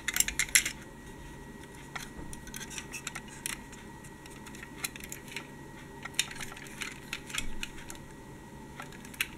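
Handling of a toy articulated trolleybus: light plastic-and-metal clicks and taps as it is turned over in the hand, with a quick run of clicks in the first second and scattered ones after.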